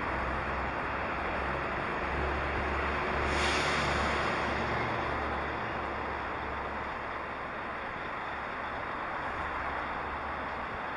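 Steady rushing wind and road noise on the microphone of a camera riding on a moving bicycle, with a low rumble underneath. It swells briefly about three and a half seconds in, then eases off slightly.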